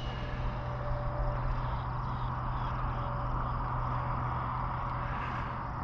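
A road vehicle going by on the paved road: a steady rush of tyre and engine noise that swells over the first second or two and slowly eases off, over a low steady hum.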